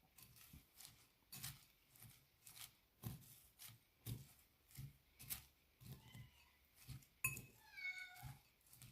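Salad being tossed and mixed in a bowl: a run of short knocks and rustles from the utensils and leaves, roughly one or two a second. Near the end comes a short, falling, meow-like cry.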